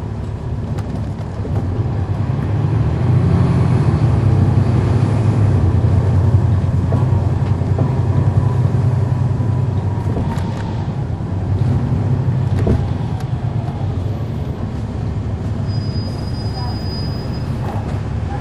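Cummins ISL9 inline-six diesel of a NABI 40-SFW transit bus heard from the rear seats, running as the bus gets under way: the low engine drone grows louder about two seconds in, eases off around ten seconds, and picks up again briefly before settling. The ZF automatic transmission adds little; the engine makes most of the noise.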